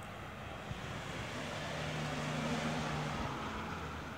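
A vehicle passing by on a wet road: tyre hiss swells to a peak past the middle and then fades, with a low engine hum underneath.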